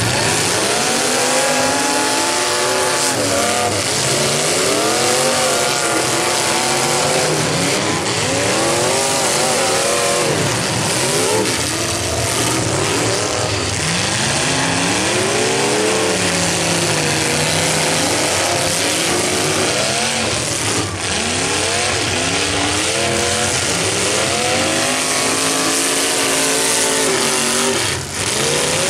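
Several demolition derby cars' engines revving hard together, their pitches climbing and falling over one another as the cars accelerate, back up and ram.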